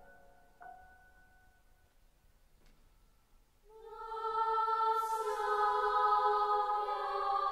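Background music: a last soft piano note dies away, and after a short pause sustained wordless choir chords swell in and hold.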